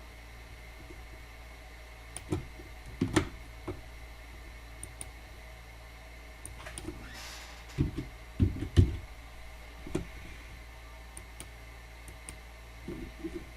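Scattered light knocks and clicks from parts being handled and set in place on an optical comparator, heaviest about eight to nine seconds in, over a steady low hum.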